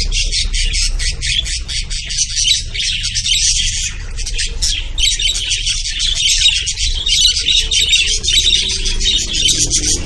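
Dense, continuous chatter of many caged lovebirds: overlapping high-pitched chirps and squawks with no break.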